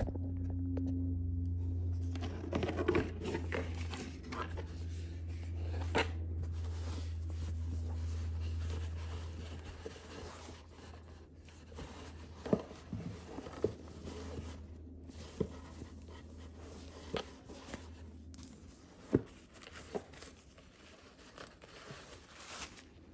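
Hands unwrapping tissue paper and handling a cardboard shoe box: paper rustling and crinkling with scattered light taps and knocks. A steady low hum underneath fades out after about eighteen seconds.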